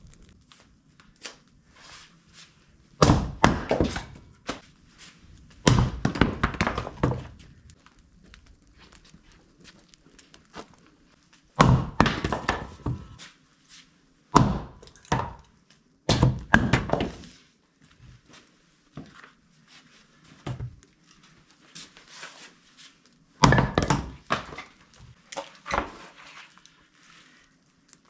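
Heavy wooden thunks with a short clatter after each, about six of them a few seconds apart, as pieces of firewood knock together.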